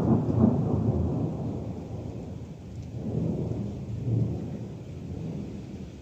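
Thunder rumbling, loudest in the first second, fading, then swelling again about three to four seconds in before dying away, over steady rain.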